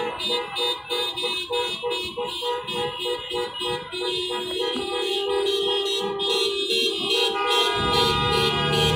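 Several car horns honking together, one sounding in quick, repeated short beeps while others are held long and steady from about halfway. A low rumble joins in near the end.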